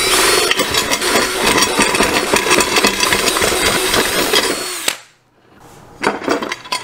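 Handheld power drill with a twist bit boring through 1/4-inch aluminum plate along a CNC groove that was only cut halfway through. It runs steadily for nearly five seconds, stops abruptly, and is followed a second later by a shorter burst.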